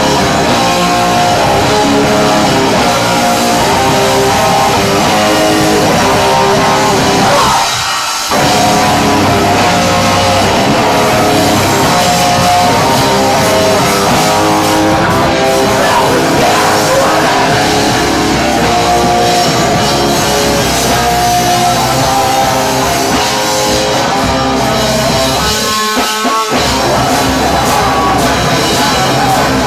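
Loud live heavy metal band: distorted electric guitar, drum kit and vocals. The bass and drums drop out in two short breaks, about eight seconds in and again near the end.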